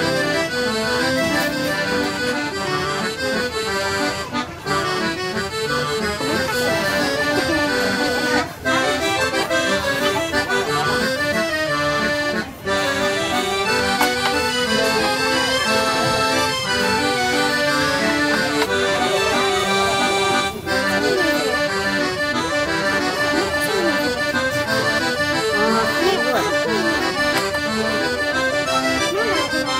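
Background music with melody lines, playing continuously at a steady level with a few brief pauses between phrases.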